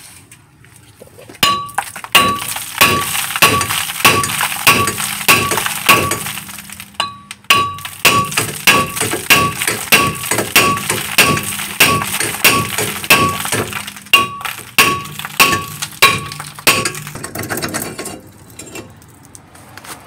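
Hammer blows striking a stuck front brake rotor on a Ford Escape to knock it off the hub, about two to three ringing metallic strikes a second. The blows begin about a second and a half in, pause briefly around seven seconds, and stop near the end.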